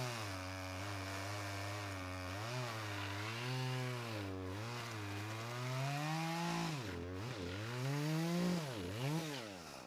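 A 14-inch chainsaw running, its engine speed rising and falling over and over, with several sharp dips and rises near the end.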